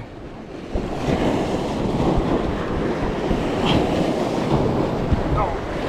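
Wind buffeting the microphone over surf washing against jetty rocks, a steady rumbling noise that comes up about a second in.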